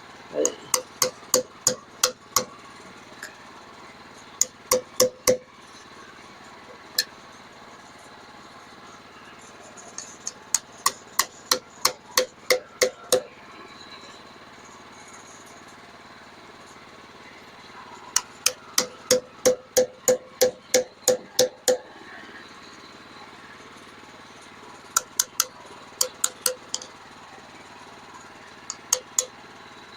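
Hammer blows ringing on metal, in runs of quick strikes about three a second with pauses between the runs.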